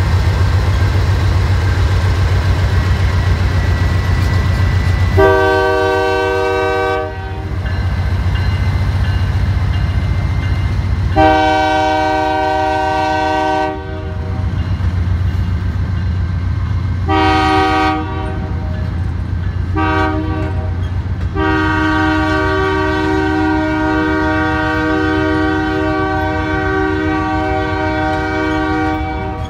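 Canadian Pacific freight train rolling past, its cars rumbling steadily on the rails, while the locomotive's multi-note air horn sounds from up the line: two long blasts, two short ones, then a long blast that is still sounding at the end.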